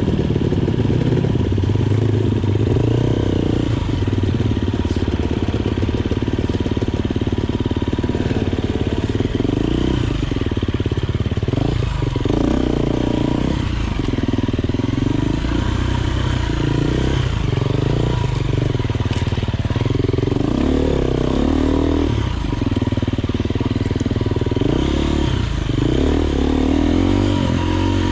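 Enduro motorcycle engine running under load as the bike is ridden off-road, its revs rising and falling again and again with the throttle.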